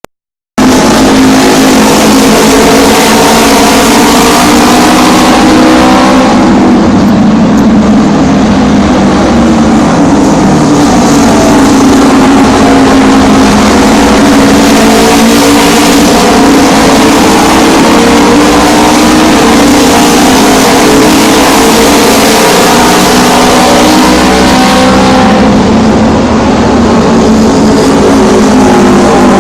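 A pack of auto race motorcycles running flat out around the oval track, their engines a continuous, very loud, distorted drone of overlapping pitches. It starts abruptly about half a second in, and the upper part of the sound dims twice as the bikes move away and come back.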